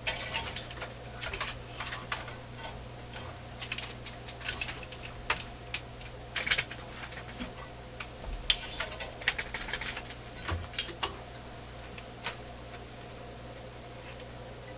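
Irregular light clicks and taps, some single and some in quick clusters, as small hand tools and parts are handled at a repair bench, over a steady low hum. The clicks stop about two seconds before the end.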